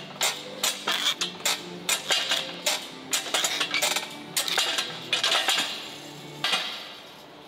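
Jaws of a hand-lever metal shrinker-stretcher biting a curved strip of sheet steel: a run of sharp metallic clacks, about three a second, that stops about six and a half seconds in.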